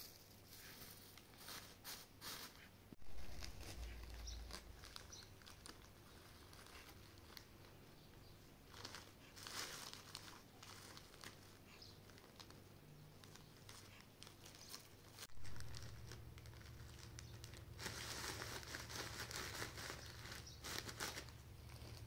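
Faint, irregular rustling of dried Damask rose petals and crinkling of a thin plastic bag as they are handled and packed by hand.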